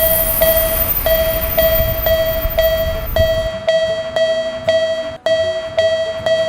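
Japanese railroad crossing alarm ringing its bell-like 'kan-kan' tone, evenly, a little under two strikes a second. A train's rumble under it stops about halfway through.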